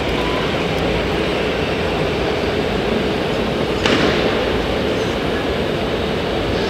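Steady running noise of RC model construction machines working a dirt course, with a single sharp knock about four seconds in.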